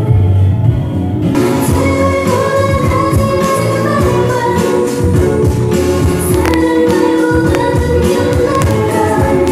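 Pop song with singing; brighter, fuller instrumentation comes in about a second in.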